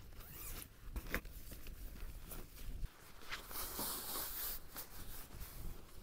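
Nylon fabric rustling with scattered clicks and knocks as camping gear is handled, then a burst of rustling in the second half as a down quilt is pulled out of its stuff sack. Wind rumbles on the microphone for about the first half.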